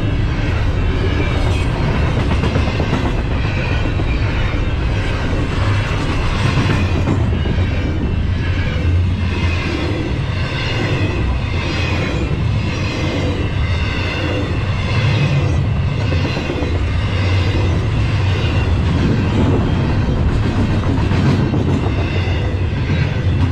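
Double-stack container well cars of a freight train rolling past at close range, with a steady rumble and clatter of steel wheels on the rails.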